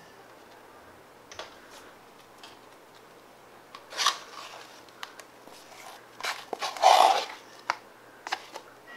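Fluffy slime being scooped out of a cup with a plastic spoon: soft squishes and scrapes with scattered small clicks, loudest about four seconds in and again around seven seconds.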